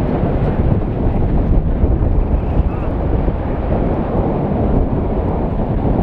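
Steady low roaring rumble of a volcanic crater erupting in lava fountains, mixed with wind buffeting the microphone.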